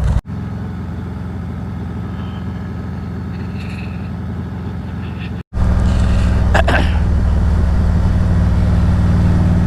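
Harley-Davidson Road Glide Special's V-twin engine running steadily at an even speed, with a sudden break about five seconds in, after which it is louder.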